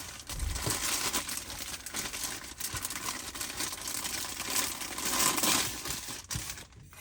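Packaging crinkling and rustling as it is opened by hand, with small clicks and handling noises throughout, quietening near the end.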